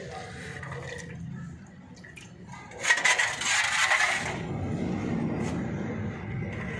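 Tractor oil drain bolt being washed in diesel: liquid sloshing and splashing with a few light metal clinks, the loudest a hissing splash of about a second and a half about three seconds in.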